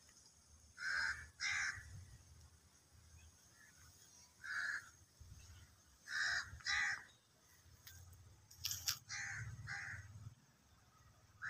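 Crows cawing repeatedly, short calls mostly in pairs about half a second apart. A couple of sharp clicks come a little past the middle, over a low rumble.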